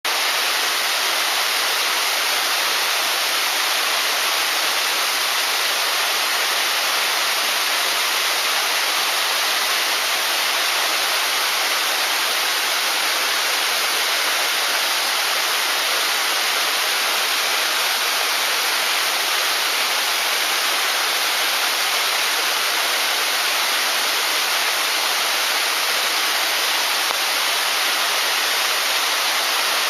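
Waterfall, Hossawa Falls, pouring down with a steady, unbroken rush of falling water.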